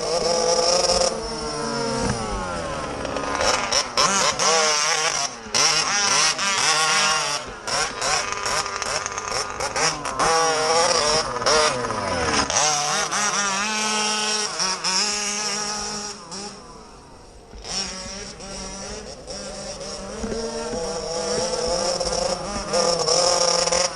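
Two-stroke petrol engine of a large-scale RC car revving up and down hard, with brief cut-outs in the note: the engine is misfiring. It drops to a lower, quieter running about two-thirds of the way through, then revs again.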